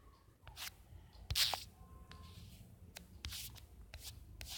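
Fingers tapping and swiping on a smartphone's touchscreen, picked up by the phone's own microphone as several scattered soft clicks and rubs, the loudest about a second and a half in.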